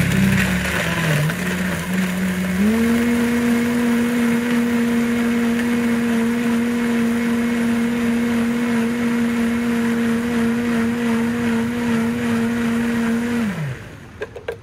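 Countertop blender crushing ice and watermelon. The motor labours and grinds at first, then about three seconds in its pitch jumps up to a steady high whine as the ice breaks down and the load eases. Near the end the motor winds down and stops, followed by a few light clicks.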